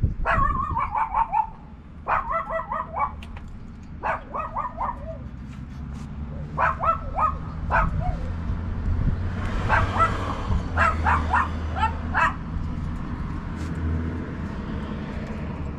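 A dog barking in about five short bouts of quick, high yaps, stopping about three-quarters of the way through, over a steady low rumble.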